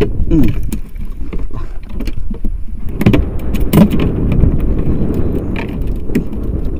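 Wind buffeting the microphone over the sea around a small open boat, with a few sharp clicks of fishing tackle being handled, about three seconds in and again a little later.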